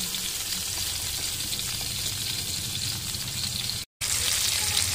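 Semolina-coated pomfret shallow-frying in oil on a tawa: a steady sizzling hiss that cuts out briefly about four seconds in.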